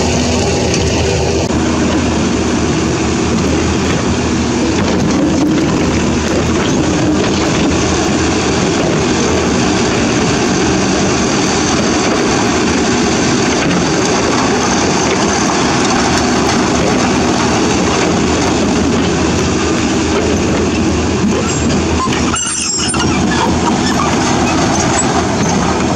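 Dump truck with its bed tipped, unloading a load of rocks and dirt: a steady rumble of rocks sliding and tumbling out of the bed over the truck's running diesel engine.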